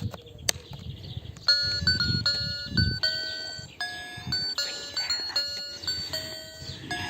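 A children's sound book's small electronic speaker playing a tinny melody of plain beeping notes, starting about a second and a half in after a click, with low rustling of the book being handled.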